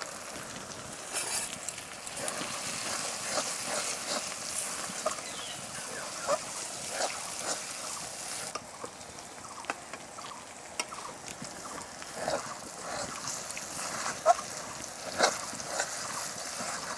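Onion-tomato masala frying in oil in an aluminium karahi, a steady sizzle with a metal spatula scraping and clicking against the pan as it is stirred. The sizzle eases about halfway through.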